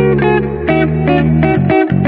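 Instrumental background music: a run of short plucked notes over a sustained bass line.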